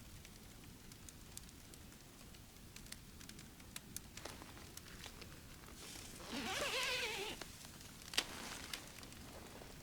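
A dog gives one brief wavering whine, about a second long, a little past halfway, over scattered faint ticks and crackles.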